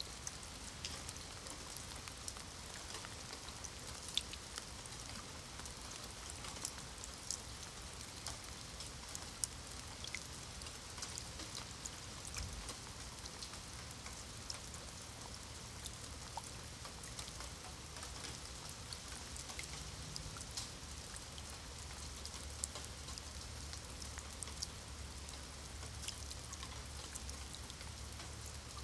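Rain falling on wet stone paving and shallow puddles: a steady hiss with many sharp drop splashes scattered through it.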